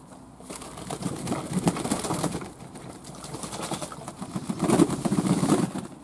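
Fantail pigeons bathing in a tub of water, splashing and beating their wings in it in two bouts of rapid flapping.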